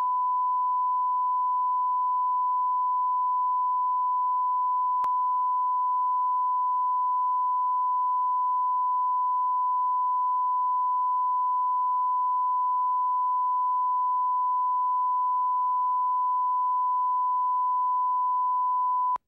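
Broadcast line-up test tone played with colour bars at the head of a videotape: one steady, pure, unchanging beep-like tone used to set audio levels. It cuts off abruptly near the end.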